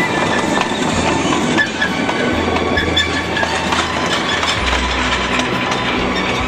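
Narrow-gauge steam train's wagons rolling past close by, wheels clattering and clinking on the rails, with background music over it.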